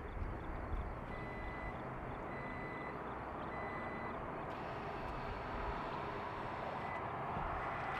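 Electronic beeper sounding a short high beep about every second and a quarter, over a steady low rumble.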